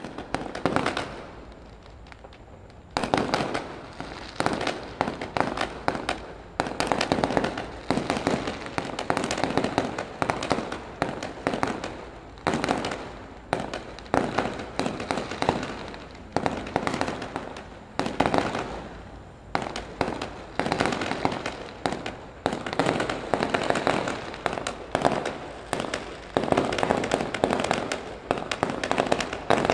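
A multi-shot 'sky shot' aerial firework battery firing a rapid, dense string of bangs and crackles. After a brief lull in the first few seconds, it restarts abruptly and keeps up a near-continuous barrage.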